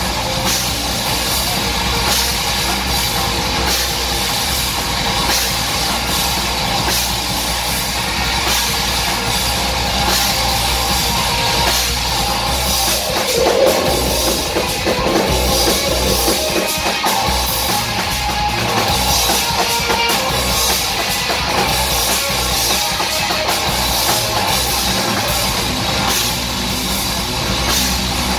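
Instrumental progressive metal band playing live: electric guitar and bass guitar over a drum kit with a constant cymbal wash, loud and dense throughout.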